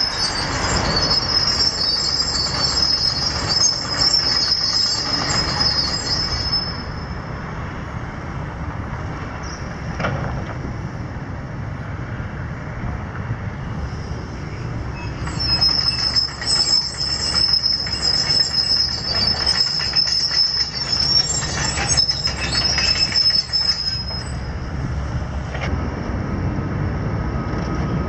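Steel crawler tracks of a New Holland 235 excavator squealing as the machine works, over a steady low rumble. The high squeal comes in two long stretches: the first stops about six seconds in, the second runs from about fifteen to twenty-four seconds.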